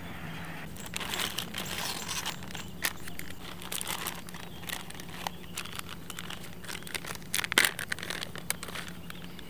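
Clear plastic zip-top bags and soft-plastic lure packets crinkling and rustling as hands rummage through them. The rustling is irregular, with a louder flurry of crackles near the end.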